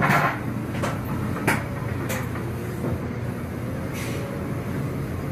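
Forklift working at a trailer: a steady engine hum with several sharp knocks and clatters as its forks meet the trailer's wooden floor. The loudest clatter comes right at the start and another sharp knock about a second and a half in.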